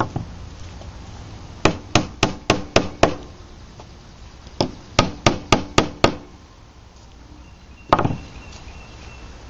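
A small hammer tapping knife handle pins into the pin holes of the handle slabs: two quick runs of about six light taps each, about four a second, then a single knock near the end with a faint ring after it.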